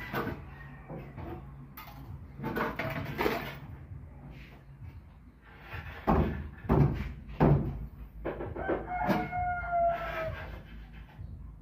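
A rooster crowing: one long call about nine seconds in that dips slightly in pitch at its end. Before it, a few loud knocks about six to seven and a half seconds in, from work at an electrical panel board.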